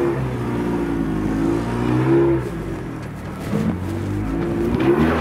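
Rock crawling buggy's engine revving up and down in bursts under throttle, with a lull about three seconds in before it picks up again.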